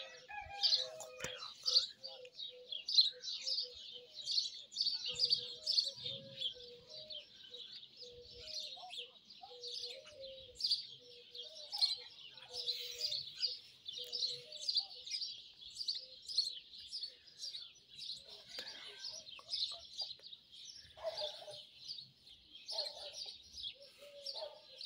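Many small birds chirping in a dense, continuous chorus of short high notes, with a lower call repeated over and over beneath them through the first half.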